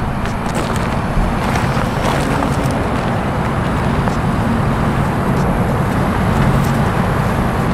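Lifted Ford Super Duty pickup truck's engine idling steadily, a low even hum.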